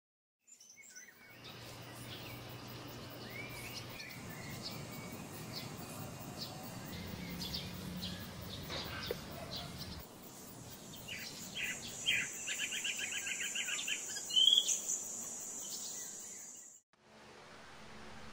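Outdoor ambience of birds chirping and calling, with a fast trill of repeated notes about two-thirds of the way through, over a steady high whine in the second half. It cuts off suddenly near the end, leaving a faint hiss.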